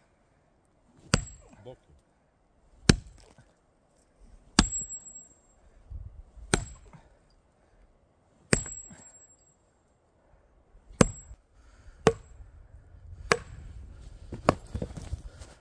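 Heavy hammer blows breaking up a lump of concrete to free an embedded metal rod: about nine separate strikes, roughly one every one and a half to two seconds, some leaving a brief high metallic ring.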